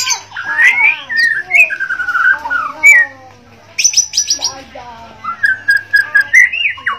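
Bornean white-rumped shama singing a varied song of loud whistled phrases that glide up and down. A quick run of sharp high notes comes about four seconds in, and a held whistle follows near the end.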